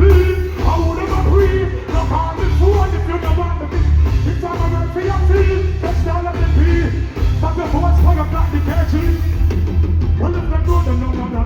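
Loud reggae music over a concert sound system, with a heavy steady bass line and a singing voice.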